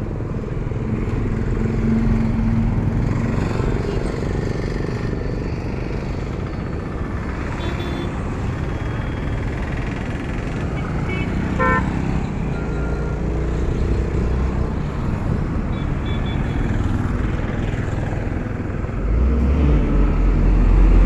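Road traffic noise heard from a two-wheeler at a junction, with a short vehicle-horn toot about halfway through. Near the end a heavy goods truck's engine rumbles loudly as it passes close.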